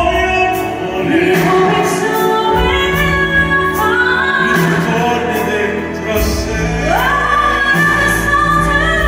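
Live duet ballad in a big operatic-pop style: a woman's and a man's voice singing long held notes over grand piano, electric bass, keyboards and a steady drum beat, heard amplified in a concert hall. About seven seconds in a voice glides up to a long high held note.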